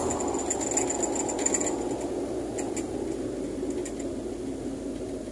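Fiat 147 race car's four-cylinder engine and drivetrain heard from inside the cabin. The sound drops at the start and then fades steadily. A few sharp mechanical ticks come in the first few seconds.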